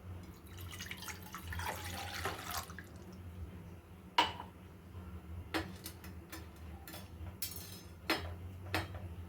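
Water poured into a kitchen vessel for about two seconds, then about half a dozen sharp clinks and taps of kitchen utensils and vessels.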